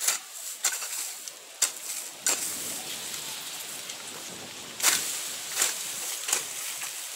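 Weeding strokes: a hand tool scraping and chopping weeds out of dry, hard ground, one sharp scrape about every second, with a short pause in the middle.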